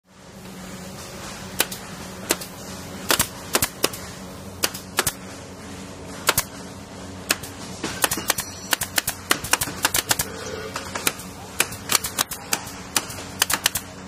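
Pneumatic nail gun (air nailer) firing a string of sharp shots at irregular spacing, a few seconds apart at first and coming quickly, several a second, from about eight seconds in, over a steady low hum.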